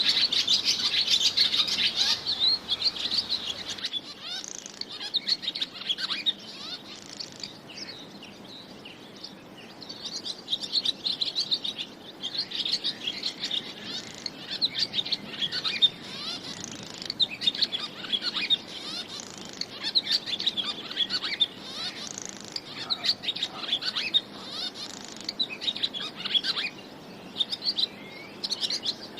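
Birds chirping and twittering: many quick high chirps coming in irregular bursts, loudest in the first few seconds.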